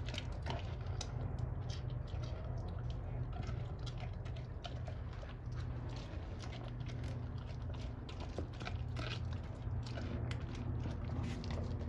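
Doberman chewing and gnawing a raw pork bone with meat on it: irregular crunches and clicks of teeth on bone throughout, over a steady low hum.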